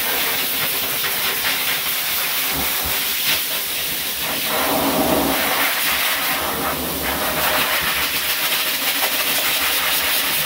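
A hose-fed forced-air dog grooming dryer blowing steadily into a dog's wet coat, a loud, even rushing hiss whose tone shifts slightly about halfway through.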